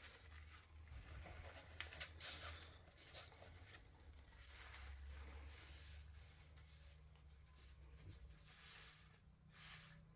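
Faint soft rubbing and dabbing of a dye-soaked paper towel on a wooden coaster blank, in short scattered strokes over a low steady hum.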